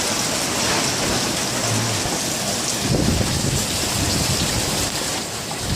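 Heavy wind-driven rain hissing steadily, with strong wind gusts buffeting the microphone in low rumbles from about three seconds in.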